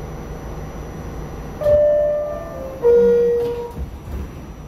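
New York City subway car's two-note door chime: a higher tone, then a lower one about a second later, each ringing out and fading. The doors slide shut right after.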